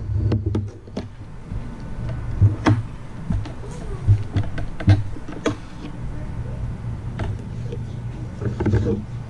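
Fillet knife cutting the rib cage out of a raw tilefish fillet, with irregular clicks and taps of the blade against a wooden cutting board, over a steady low hum.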